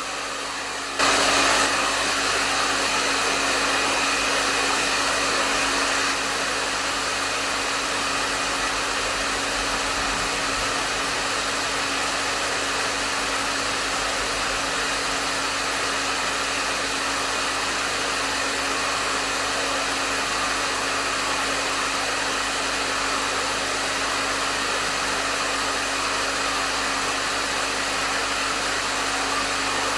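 Hair dryer blowing steadily: an even rush of air over a steady motor hum. It jumps louder about a second in, then settles a little lower about six seconds in.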